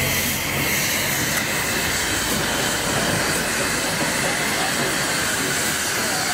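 Steam locomotive blowing off steam: a steady hiss of steam venting from the top of its boiler.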